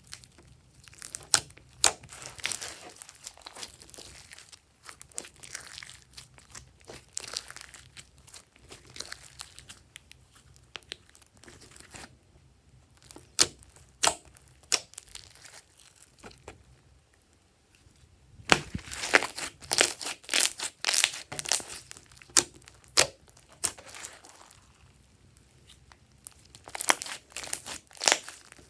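Glossy slime being kneaded and stretched by hand, giving clusters of sharp clicks and crackles, with a couple of short lulls partway through.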